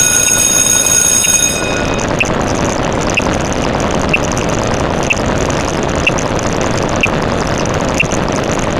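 Steady loud rumbling noise with a short high tick about once a second. A set of high steady tones stops about a second and a half in.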